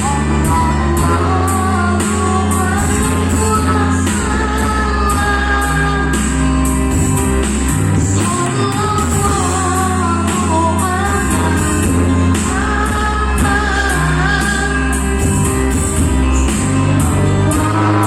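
A young girl singing sholawat, an Islamic devotional song, with a flowing, ornamented melody over a backing track with held bass notes and a steady beat.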